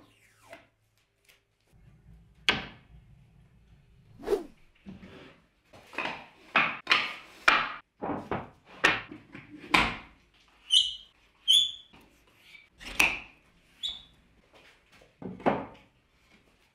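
Wooden boards handled on a wooden workbench: an irregular run of knocks, thumps and short sliding scrapes as a wide board is set down and pushed into place against wooden bench stops. A few brief squeaks come between about 11 and 14 seconds.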